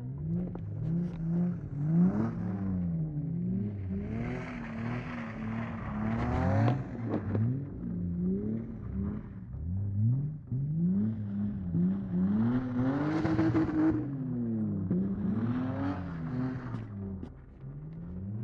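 Car engine revving up and down over and over on snow, the pitch sweeping up and falling back every second or two and climbing highest about two-thirds of the way through, with bursts of hiss at the peaks.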